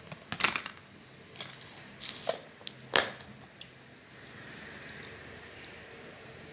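Tableware being handled on a table: a few sharp clicks and light clatters, the loudest about half a second in and again at about three seconds, as a knife and other items are picked up and set down.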